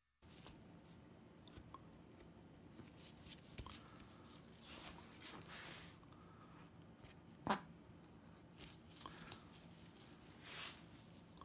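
Faint skinning work on a wolf hide: soft cutting and scraping with scattered light clicks, and one sharper click about seven and a half seconds in.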